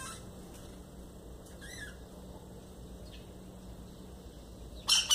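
Sayaca tanagers calling: a few short, high-pitched notes early on, then a loud, sharp call near the end, over a steady low hum.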